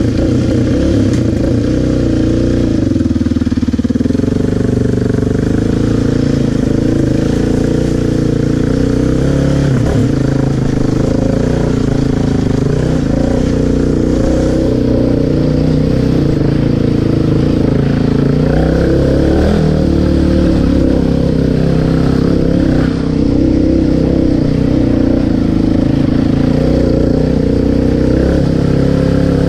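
Yamaha Raptor quad's single-cylinder engine running continuously while riding a dirt trail, its pitch rising and falling with the throttle.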